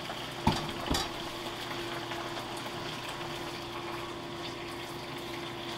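Pasta cooking water poured into a frying pan of hot olive oil and vegetables, then simmering steadily, with two light knocks about half a second and a second in and a steady low hum underneath.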